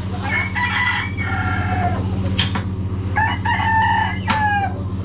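A rooster crowing twice, each crow a long call that drops in pitch at the end, over the steady low running of a dump truck's engine.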